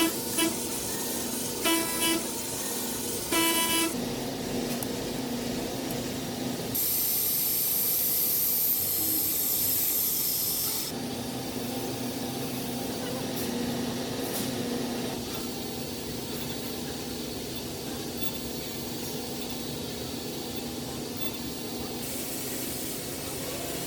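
Industrial machine running with a steady hum, after three short beeps in the first few seconds. A loud hiss of spraying air or coolant runs for about four seconds.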